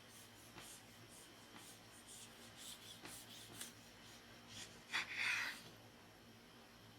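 A freshly sharpened ceramic knife making a run of light cutting strokes, then one louder rustling cut about five seconds in: a sharpness test.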